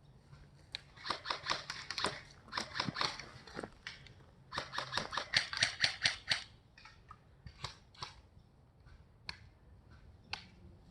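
Airsoft guns firing: two long strings of rapid shots in the first six seconds or so, then scattered single shots.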